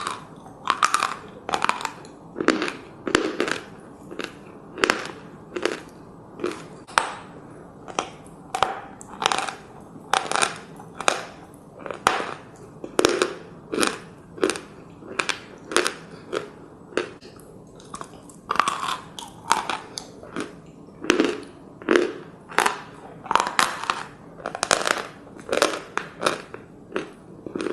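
Natural Akbulak chalk, a dry, gritty variety, being bitten and chewed close to the microphone, at about two crisp crunches a second.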